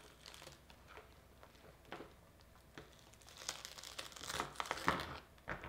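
A durian's spiky, fibrous husk being pulled apart by hand along its cut seams: faint scattered crackles and tearing sounds, getting busier a little past halfway.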